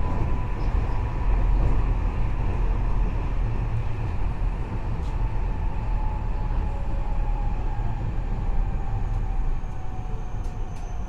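Inside a Nagoya Municipal Subway N3000-series car on the move: a steady heavy rumble of the running train under the whoosh of the ceiling ventilation fan, with faint whines that slowly fall in pitch.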